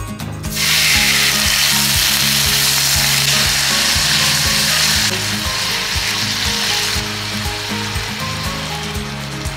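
Food sizzling loudly in hot oil in a pan. The hiss starts suddenly about half a second in, then eases in two steps later on.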